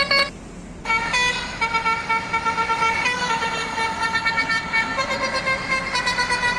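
Telolet musical horn playing a tune of held notes that step up and down in pitch, breaking off briefly about half a second in before the melody carries on.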